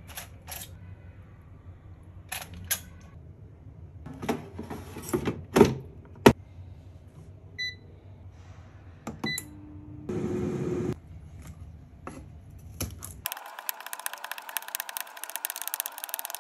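Metal tongs clicking against an air fryer basket as chicken wings are laid in, the basket pushed home with a sharp clunk, and two short beeps from the Xiaomi air fryer's touch panel. In the last few seconds, a knife chopping spring onions quickly on a wooden cutting board, a fast run of taps.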